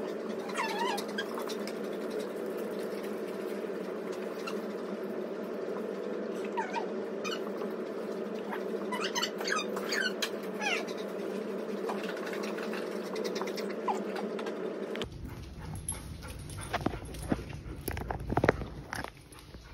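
A dog whining in several bouts of short, high, wavering whimpers over a steady hum. About three quarters of the way through, the hum cuts off and scattered knocks follow, the loudest near the end.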